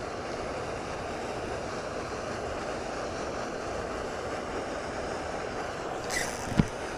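Steady outdoor rushing noise, with a brief rustle about six seconds in and a single dull knock just before the end.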